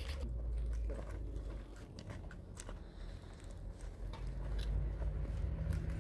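Footsteps crunching on loose stones and gravel, with scattered clicks of stones underfoot over a low rumble that grows a little louder near the end.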